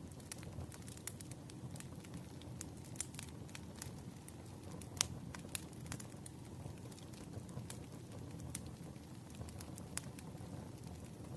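Firewood burning in a campfire: a steady low rumble of flames with frequent sharp crackles and pops, the loudest about five seconds in and again near ten seconds.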